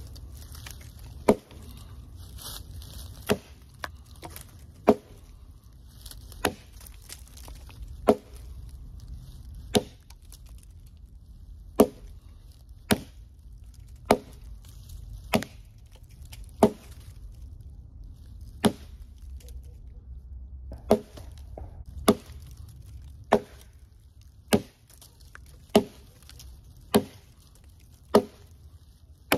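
Steel hatchet head (Nedfoss 15-inch camp hatchet) chopping into a dry, very hard log: about twenty sharp, separate strikes, roughly one every second and a half.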